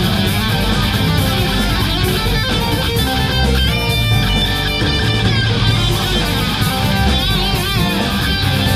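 A rock band playing live: electric guitars over bass and drums, loud and continuous.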